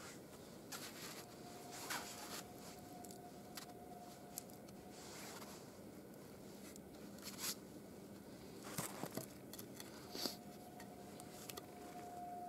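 Cord being wrapped and pulled tight around crossed wooden sticks: faint scraping and rubbing of twine on bark, with a few light knocks of the sticks.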